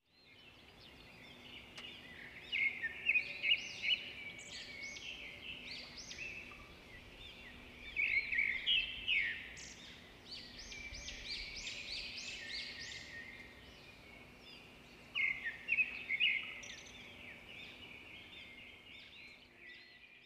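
A chorus of many small birds chirping and twittering at once, with short quick notes overlapping and swelling into louder bouts several times, over a faint steady low hum.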